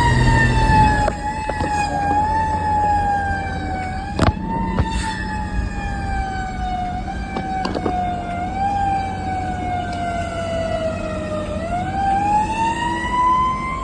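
Fire engine siren wailing, its pitch sliding slowly down for about eleven seconds and then winding back up near the end. The truck's engine runs underneath, with a couple of sharp knocks about four seconds in.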